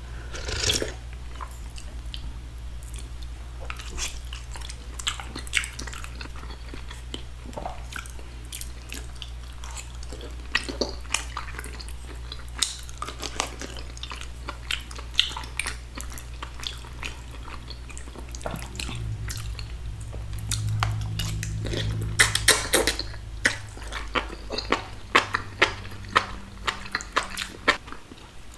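Close-miked chewing and wet mouth smacking while eating saucy food such as tteokbokki, king crab and enoki mushrooms, with many short sticky clicks. A steady low hum sits underneath.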